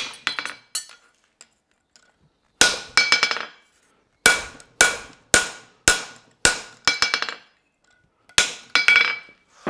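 A hammer strikes a handled farrier's fuller held in the groove of a steel horseshoe on an anvil, fullering the nail crease. Sharp metallic blows come in runs of about two a second with short pauses between, each ringing briefly at a clear pitch.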